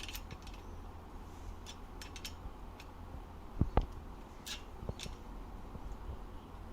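5 mm Allen key clicking and ticking against metal as the two screws of an electric bike's folding stem are tightened one by one, with two sharper knocks a little past halfway.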